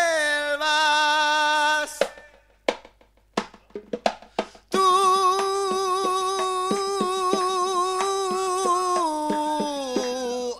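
A man's voice holding long sung notes that step down in pitch, broken about two seconds in by a few seconds of scattered percussion hits. From about five seconds in a final long note is held over a run of percussion hits and drops twice in pitch near the end.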